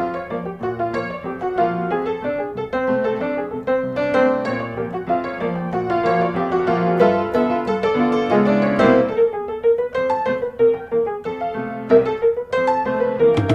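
Background music led by piano, with quick, busy notes.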